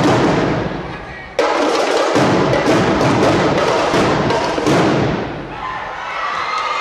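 A marching drumline playing a fast cadence of snare, tenor and bass drum strokes. The drumming stops for a moment and comes back in all at once about a second and a half in, and eases off near the end.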